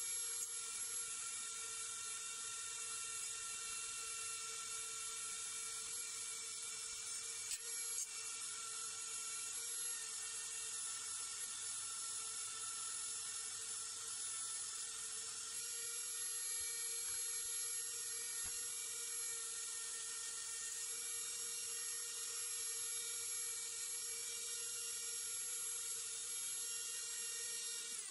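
Small handheld high-speed rotary tool running steadily with a constant high whine as it works rust off a chrome moped luggage rack.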